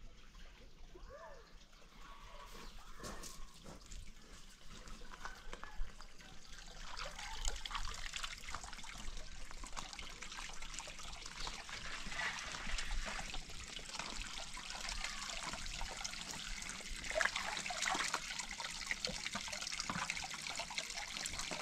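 Water trickling and splashing, with many small knocks and clicks, growing louder after the first several seconds.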